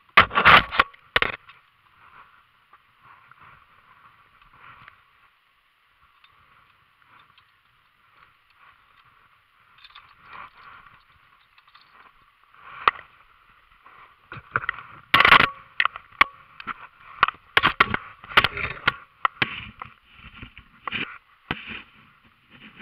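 Scattered knocks, clatters and scrapes of people handling things and moving about. There are two sharp knocks right at the start, then a busy run of them in the second half, over a faint steady hiss.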